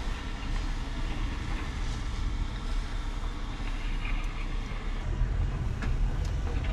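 Steady low rumble of a car driving over a rough dirt track, heard from inside the cabin, growing a little heavier about five seconds in, with a few faint clicks.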